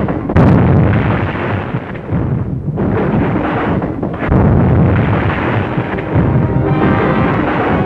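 Storm sound effects from an old film soundtrack: a continuous heavy rumble of thunder and storm noise, broken by sharp cracks about half a second in and again around three and four seconds in, mixed with music.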